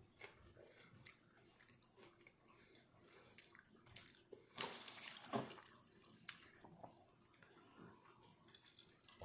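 Faint sounds of a person eating noodle soup: quiet chewing with scattered small clicks, and two brief louder noises about four and a half and five and a half seconds in.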